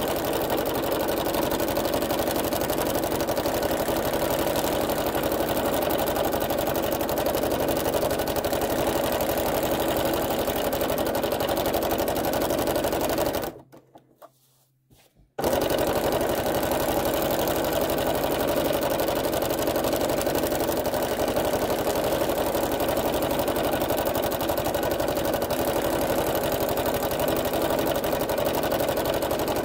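Sewing machine running steadily at speed, free-motion stitching a thread outline with the fabric moved by hand. It stops completely about halfway through for a second or two, then starts up again and runs on.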